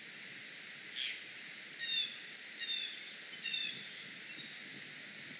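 A small songbird gives one sharp call about a second in, then sings three short, quick phrases of chirps, over a steady hiss of falling rain.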